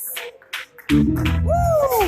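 Gospel music starts about a second in: sustained low chords with a lead melody line that slides down in pitch.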